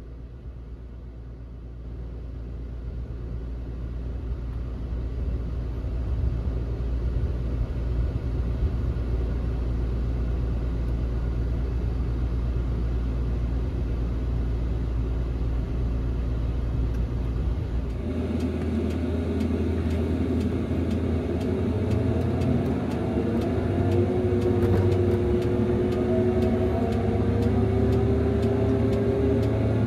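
Fendt Ideal 7T combine running, heard from inside the cab: a steady low hum that grows louder over the first few seconds. About 18 seconds in the sound changes to the combine travelling on the road, with tyre and wind noise and an engine note that rises slowly.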